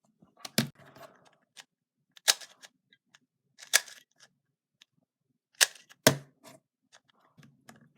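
Sparse sharp plastic clicks and knocks, about five loud ones with fainter ticks between, from handling a speed cube and its plastic stand.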